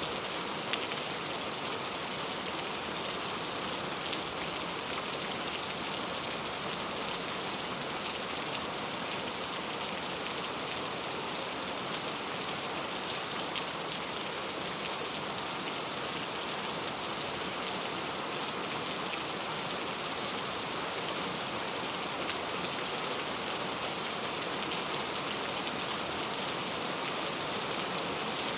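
Steady rain: an even hiss with a few sharper drop ticks here and there.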